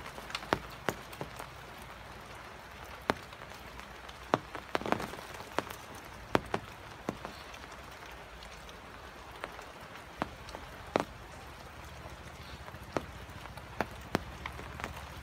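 Steady rain falling, with irregular sharp drips tapping on hard surfaces.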